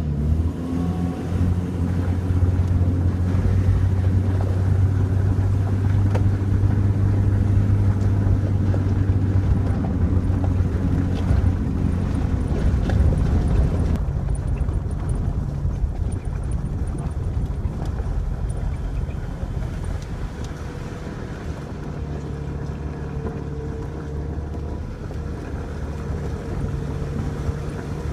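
Jeep Cherokee XJ driving on a dirt back road: a steady low engine drone with road and tyre noise. The engine note shifts about halfway through and settles into a new steady note over the last few seconds.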